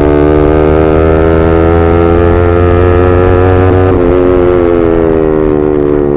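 Yamaha R15M's single-cylinder engine running through an SC Project full-system exhaust while riding, a loud, steady exhaust note. About four seconds in the deep low rumble drops away and the pitch sags a little as the throttle eases.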